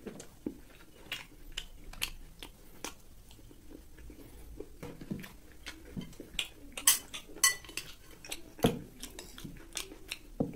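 Metal spoon clinking and scraping against a glass bowl of rice in short, sharp clicks, most crowded and loudest a little past the middle, with mouth chewing sounds between them.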